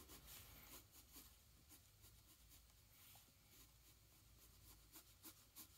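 Faint scratching of a pencil drawing on paper, in a series of short strokes.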